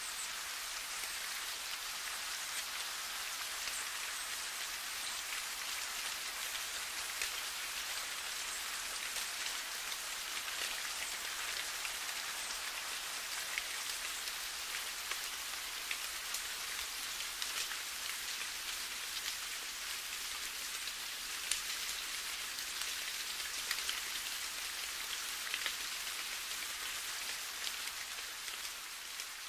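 Steady rain falling, an even hiss of drops with scattered faint ticks, beginning to fade near the end.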